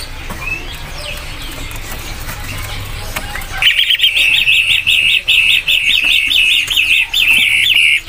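Caged pentet matahari shrike singing a loud, rapid run of evenly repeated sharp notes, about four to five a second, starting a little before halfway through; fainter chirps from other caged birds come before it.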